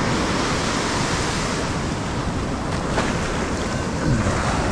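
Heavy ocean surf breaking on a beach: a steady, even wash of wave noise.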